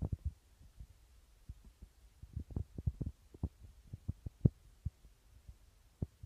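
Dull, irregular low thumps and knocks, coming in uneven clusters, as a part is dipped and moved through the water of a hydrographic water transfer printing tank.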